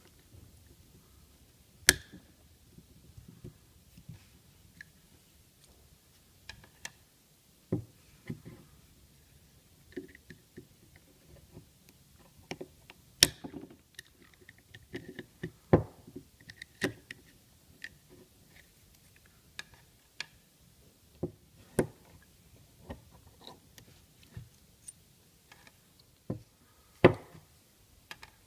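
Irregular sharp clicks, taps and light knocks of a utility knife blade picking and cutting the worn original Buna rubber seals out of the grooves of a steel BMW Vanos piston, which is handled by hand.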